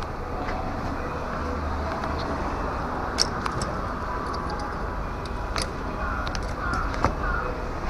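Nissan Serena engine idling steadily and smoothly, its cylinder-3 misfire (P0303) repaired. A few sharp clicks come through over the running engine.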